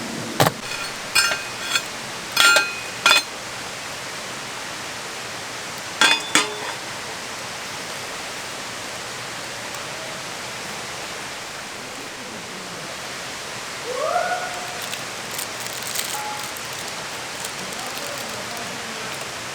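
Metal clinking, likely camp cookware or utensils knocking together. There are several ringing clinks in the first three seconds and two more about six seconds in, over a steady rushing hiss.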